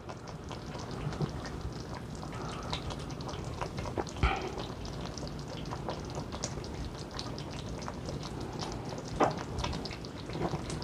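Fresh mozzarella being torn apart by hand and dropped onto gnocchi in tomato sauce: faint, irregular small clicks and taps, with a slightly louder knock about four seconds in and another near nine seconds.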